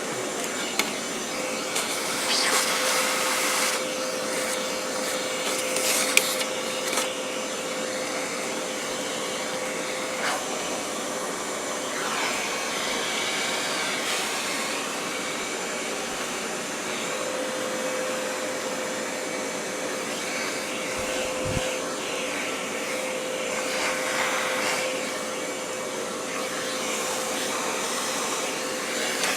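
Oreck XL handheld vacuum running steadily with a steady whine, its brush attachment being worked over a vacuum cleaner's housing, with a few brief knocks of the attachment against it.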